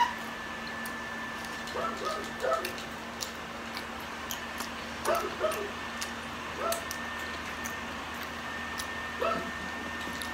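A dog whining and yipping, about six short high-pitched calls spread a few seconds apart.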